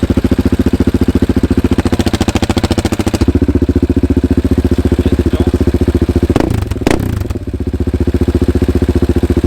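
Husqvarna 701's single-cylinder engine idling loud through a titanium Akrapovič slip-on exhaust, each firing pulse distinct, with two quick throttle blips about six and a half and seven seconds in.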